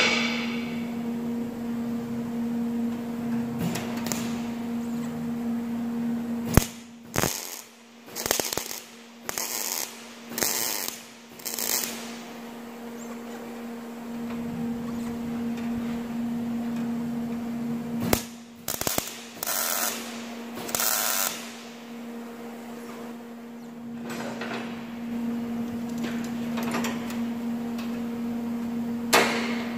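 MIG welder tack-welding steel flat bar to a car bonnet panel: a run of about six short sputtering bursts, then after a pause another four or five, each lasting well under a second. A steady electrical hum runs underneath.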